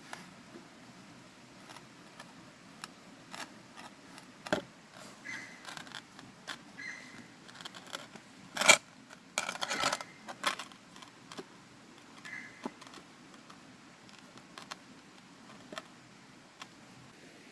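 Handling noises: scattered light clicks and clinks, with one sharp knock about nine seconds in followed by a brief burst of rattling clatter.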